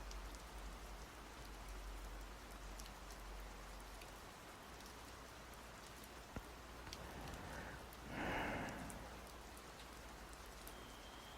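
Steady light rain, an even hiss with scattered drop ticks. A brief, louder soft whoosh comes about eight seconds in.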